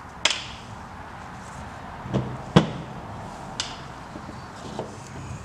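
Handling noise from a tractor carburetor being taken apart on a table: about five short clicks and knocks as its body and small parts are pulled apart and set down, the loudest about two and a half seconds in.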